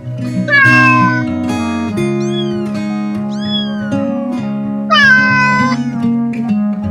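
A cat meowing four times over steady background music: loud falling meows about half a second in and about five seconds in, with two shorter arched mews in between.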